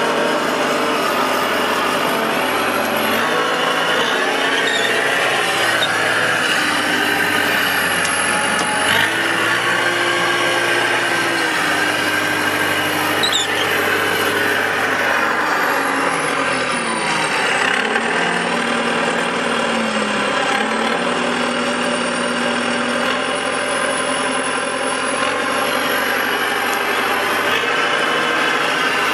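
Front-end loader's diesel engine heard from inside the cab, running steadily while the machine moves, its pitch stepping up and down several times as the engine speed changes.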